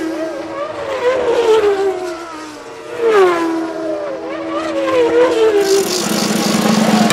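Racing-car engine sound effect sweeping past twice, about three seconds apart, its pitch falling each time and then holding steady.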